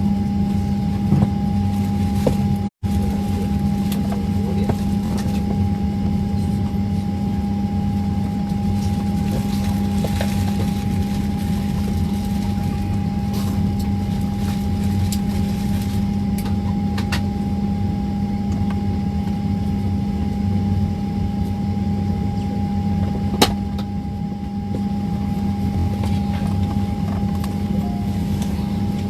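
Steady airliner cabin noise: a constant engine and air-system hum with a thin steady whine. There is a momentary dropout just under three seconds in and a single sharp click near the end.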